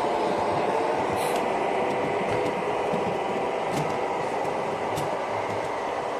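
Model freight train running along its track, a steady hum and rolling noise that slowly fades as it draws away, with a few faint clicks.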